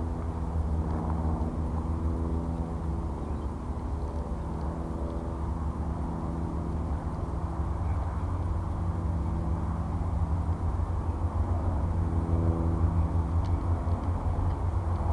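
Small brushless-motor racing quadcopter humming steadily at low speed while it sits on the ground, over a strong low rumble.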